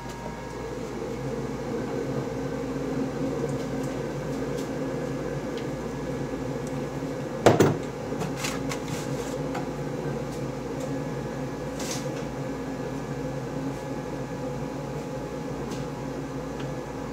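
A steady machine hum, with one sharp knock about halfway through.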